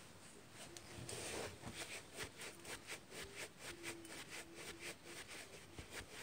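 Faint rhythmic rubbing and light tapping, about four strokes a second, from Nike TN trainers being flexed and dangled off socked heels.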